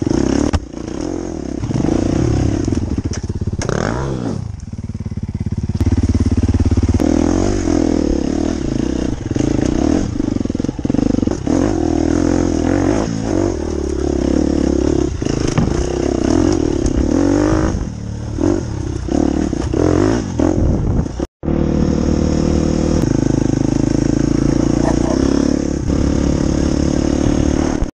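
Dirt bike engine heard from the rider's helmet, revving up and down in uneven bursts with clatter as the bike works over rough, rocky trail. After a brief dropout about two-thirds in, it runs more steadily at a sustained speed.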